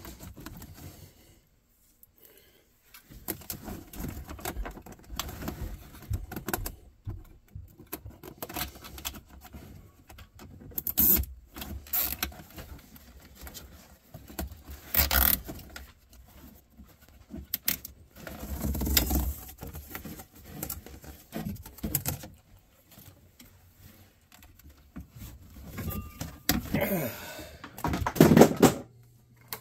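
Irregular handling noise of hand work on a UTV's dash: corrugated plastic heater ducts being pushed onto the heater box and a plastic dash panel being handled, with rustling, scattered clicks and knocks, and the loudest knocks near the end.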